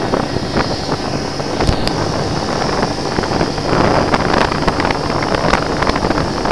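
A quad bike travelling along a rough dirt track: steady rumbling noise with wind buffeting the microphone and frequent small rattles and knocks as it rides over the ruts.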